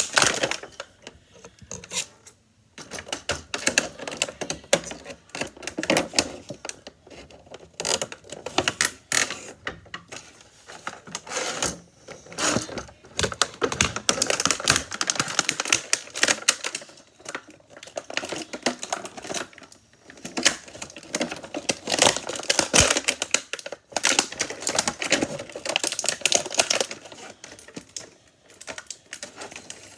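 Toy packaging being handled and pulled apart: a dense, irregular run of plastic and cardboard clicking and crinkling as a toy figure is worked out of its box.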